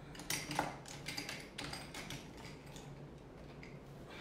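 Small hard objects clinking and knocking together as they are handled and rummaged through: a string of light, sharp taps, the loudest about half a second in.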